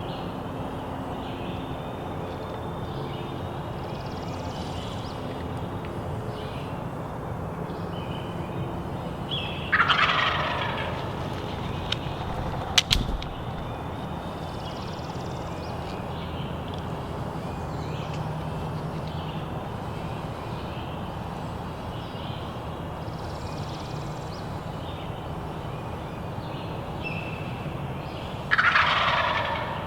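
Wild turkey gobblers gobbling twice, about ten seconds in and again near the end, each gobble a loud, falling, rattling call about a second long. A single sharp click comes a few seconds after the first gobble, with faint small-bird chirps over a steady background hiss.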